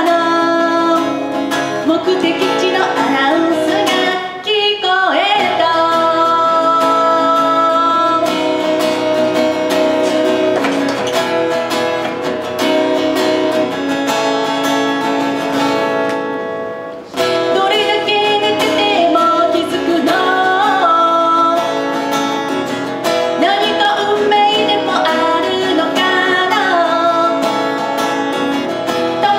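A woman sings with her own strummed acoustic guitar, played live through a microphone. Voice and guitar break off briefly about seventeen seconds in, then carry on.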